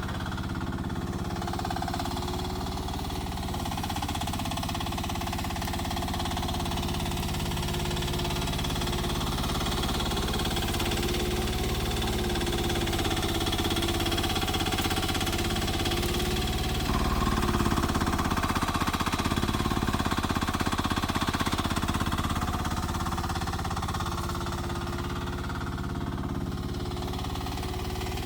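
Rippa R10 mini excavator's small engine running steadily with a rattling beat, working the hydraulics. It gets louder and harder-working about two-thirds of the way through, then drops back near the end.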